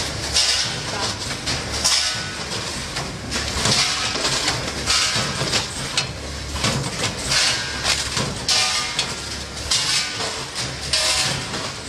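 Block-bottom bag packaging machine running through its cycle: repeated clacks and bursts of hiss roughly once a second over a steady low motor hum.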